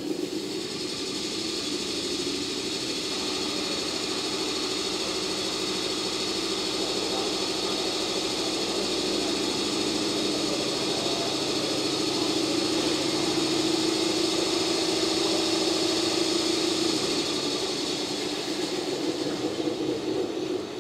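The EF65 electric locomotive's air compressor running steadily, a hum with a hiss over it, pumping up the locomotive's air supply, which has run empty. It kicks in at the start and cuts out near the end.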